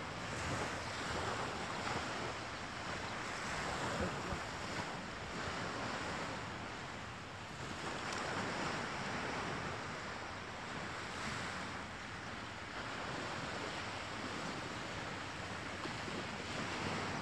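Sea surf washing onto a sandy beach, a steady rush of noise that rises and falls, with wind buffeting the microphone.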